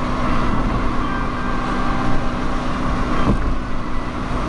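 Steady road and engine noise of a moving car, heard from inside the cabin: a constant hum over tyre rush.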